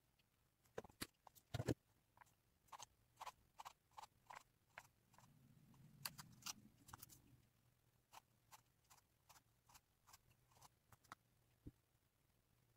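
Faint, sharp ticks and taps, about two or three a second, with a soft low rumble about halfway through; otherwise a quiet room.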